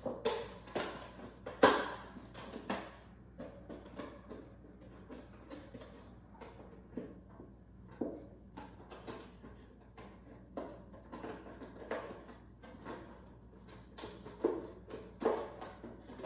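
Scattered light clicks and knocks at irregular intervals, the loudest about two seconds in, over a faint steady low hum.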